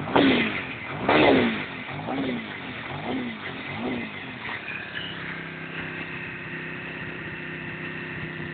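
Ducati 600SS air-cooled V-twin engine revved with two sharp throttle blips, then three smaller ones about a second apart, each rising and falling in pitch. It settles to a steady idle about five seconds in.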